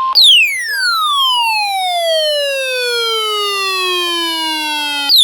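A steady weather-radio alert tone cuts off and a single electronic tone glides smoothly down in pitch, from very high to low, over about five seconds. It ends in a short upward chirp, the loudest moment.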